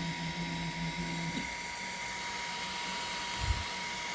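Toybox 3D printer's motors whining as the paused print head moves, stopping about a second and a half in, leaving a steady high electronic whine and hiss. A soft low thump comes near the end.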